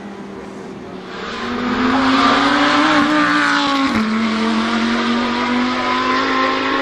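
A high-revving car engine under power, growing louder over the first two seconds as its pitch climbs. The pitch drops suddenly just before the four-second mark, then holds steady and loud.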